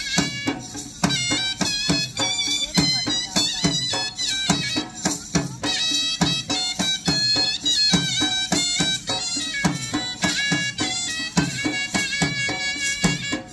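Instrumental traditional Indian dance music: a high, ornamented melody line of held and gliding notes over regular low drum strokes, about two a second.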